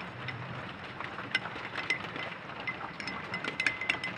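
Metal spoon stirring cornflour and water in a glass, clinking against the glass in irregular light taps over a steady background hiss.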